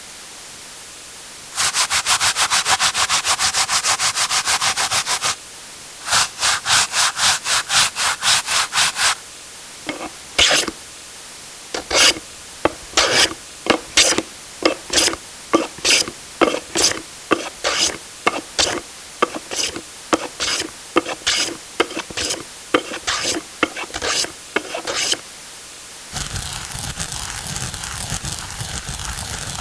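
Kitchen sound-effect takes of repeated rubbing, scraping strokes. The first is a fast, even run of many strokes a second, the next a slower run of about four strokes a second, and the last an irregular series of strokes. Near the end a different steady rustling noise starts.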